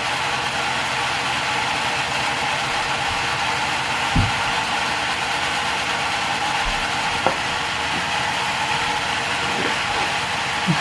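A small motor running steadily with an even mechanical whir, with a light knock about four seconds in and another about seven seconds in.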